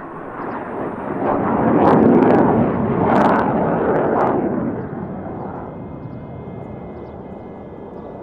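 A vehicle passing by: a rushing noise that builds from about a second in, peaks over the next few seconds, and fades away by about five seconds in.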